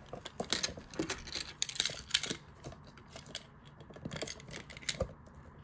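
Fingers handling a cardboard trading-card box, a string of light, irregular clicks, taps and rustles, with a quieter stretch about three seconds in.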